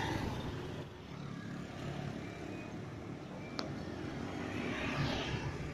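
Road traffic: motor vehicles passing on the street, one growing louder toward the end. A single sharp click about three and a half seconds in.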